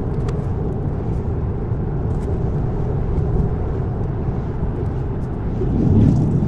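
Road and tyre noise inside a Tesla's cabin at highway speed, a steady low rumble with no engine note, swelling briefly near the end.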